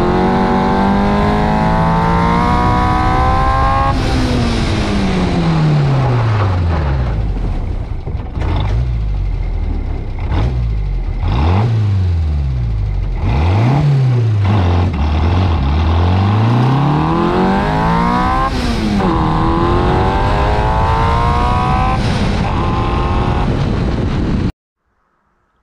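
Reliant 750cc four-cylinder engine of a small sports racing car, driven hard at speed. Its revs climb, drop and climb again many times, with several quick dips and pick-ups in the middle, over wind and road noise. The sound cuts off abruptly near the end.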